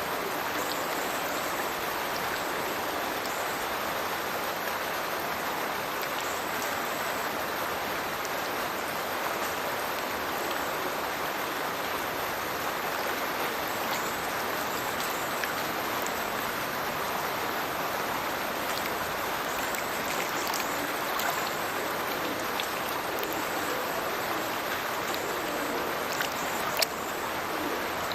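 A burn pouring from a culvert outfall into a river below, making a steady, even splashing rush of falling water. A single short knock sounds near the end.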